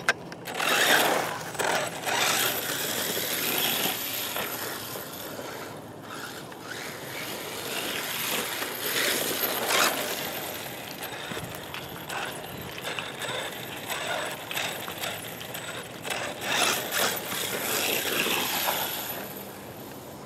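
Brushless electric motor of a HobbyKing Rattler 1/8-scale 4WD RC buggy on a 2S battery, whining up and down in bursts of throttle, with its tyres scrabbling over hard dirt and dry leaves. It fades near the end.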